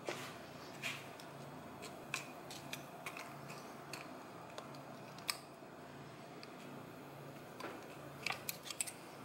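Irregular small clicks and taps of a hand tool against the cast housing of a Bendix hydroboost as a new seal is worked into its bore, with a quick cluster of taps near the end.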